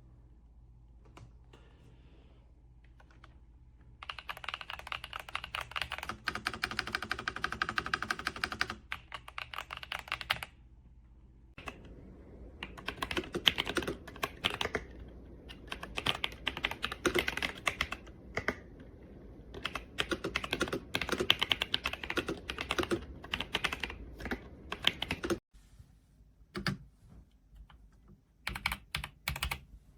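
Fast typing on an RK Royal Kludge S98 mechanical keyboard, a dense run of key clicks. It starts about four seconds in, breaks briefly near ten seconds, runs on again until about twenty-five seconds, and ends with a couple of short bursts.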